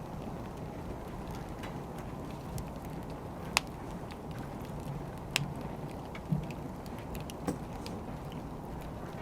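Wood fire burning: a steady low rush with scattered sharp pops and crackles, five or so, the loudest about three and a half seconds in.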